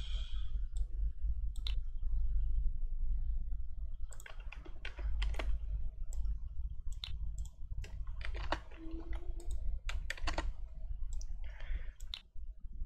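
Irregular clicks of a computer mouse and keyboard keys as a value is typed in and a block is dragged into place, over a steady low hum.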